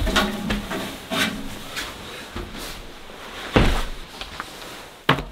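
A few separate wooden knocks and clunks, as of tools and boards being handled. The loudest comes about three and a half seconds in, and a sharp one just before the end.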